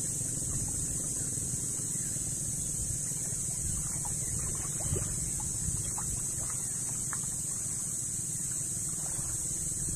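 Wind rumbling on the microphone over a steady high hiss, with small splashes of water against a small wooden outrigger boat as it is walked through shallow water.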